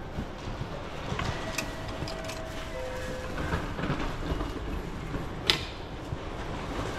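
Ticket vending machine reading an inserted card, making a few short mechanical clicks over a steady station hum; the sharpest click comes about five and a half seconds in.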